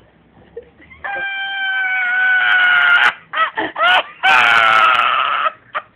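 A man letting out high-pitched cries: about a second in, one long held cry that sags slightly in pitch, then a few short yelps, then another long cry.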